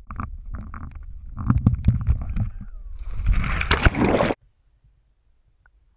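Air rushing and rumbling over an action camera's microphone as a person swings out on a rope swing, then a loud splash as they plunge into a river. About four seconds in the sound cuts off suddenly to near silence as the camera goes underwater.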